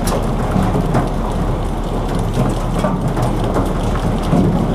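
Steady rumbling wash aboard a small fiberglass fishing boat: the boat's engine running and water moving along the hull, with no single event standing out.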